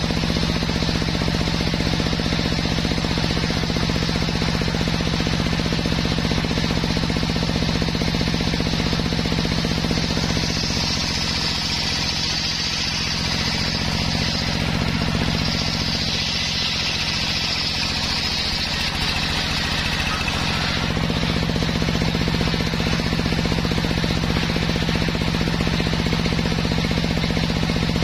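Homemade table circular saw running steadily, its drive motor humming and the blade ripping a soft waru log lengthwise. From about 10 s to about 21 s the hum changes and a high cutting hiss grows louder, then the steady running hum returns.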